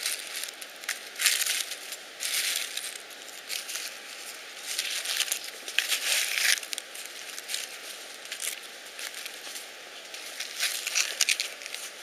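Dry leaf litter and twigs rustling and crackling in irregular bursts as a hand moves through them close to the microphone.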